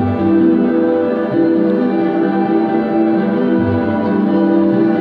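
Live ambient electronic music: layered, sustained synthesizer tones forming chords that shift slowly, with no beat.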